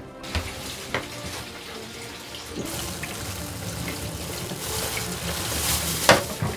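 Water running from a tap into a sink basin while plastic bags of food are set into the water, rustling and splashing. There is a sharp knock about six seconds in.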